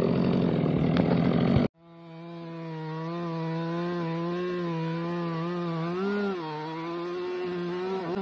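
Two-stroke gas chainsaw running at full throttle while cutting through a thick tree limb. Its pitch stays steady, with slight wavers and a brief rise and dip past six seconds, then drops as the throttle is let off at the end. Before it, a louder engine noise cuts off suddenly about two seconds in.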